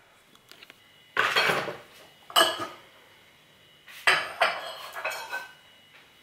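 Dishes and cutlery clattering as they are handled and set down during kitchen cleanup: several short bursts of clinks and knocks with a brief ringing after them, at about one second, two and a half, four and five seconds in.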